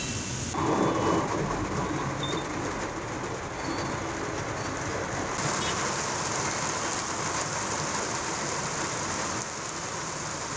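Steady hiss of rain and traffic on a wet city street, vehicles running past, with a rumble underneath. The mix shifts about half a second in and again around five seconds in.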